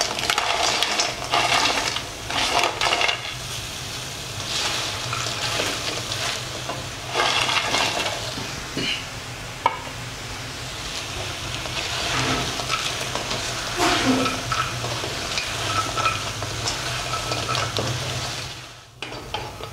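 Fried cauliflower pieces tipped into a kadai of sizzling onion-sauce masala and stirred with a spatula: the food sizzles steadily while the spatula scrapes and tosses in repeated bursts.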